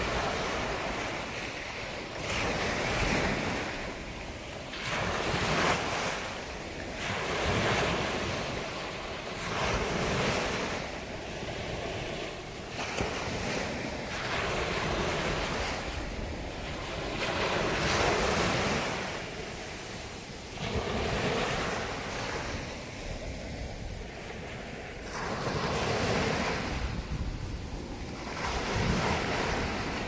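Ocean surf breaking and washing up a sandy beach, the noise swelling and falling every two to three seconds as each wave comes in, with wind buffeting the microphone.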